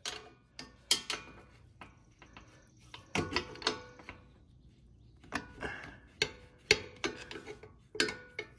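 Pliers working a spring hose clamp onto a tractor hydraulic hose: irregular sharp metallic clicks and scrapes as the jaws grip, slip and reset on the clamp, some clicks ringing briefly.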